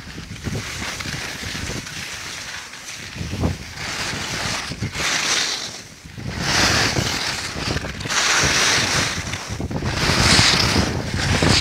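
Skis scraping and hissing over packed snow on a downhill run, the hiss swelling in several surges in the second half, with wind buffeting the microphone underneath.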